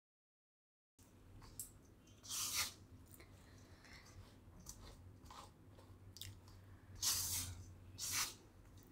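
Silicone spatula stirring and scraping through dry powder mix in a stainless steel bowl, giving a few short gritty scrapes. It starts after about a second of silence, and the loudest scrapes come about a second and a half in and twice near the end. A faint low hum sits underneath.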